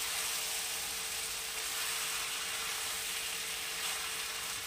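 Vegetables and masala paste frying in oil in a kadai over a low gas flame while being stirred with a wooden spatula: a steady sizzling hiss, with a faint steady hum underneath.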